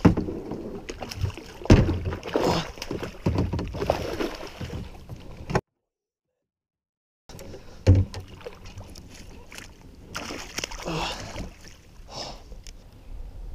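A hooked largemouth bass being fought and netted beside a plastic kayak: irregular water splashing and handling knocks against the hull, with two harder knocks. The sound drops out completely for a moment near the middle.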